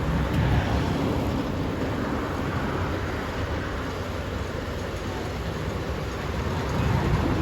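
Kubota ER470 combine harvester's diesel engine and machinery running steadily, a dense low drone that swells slightly a little after the start and again near the end.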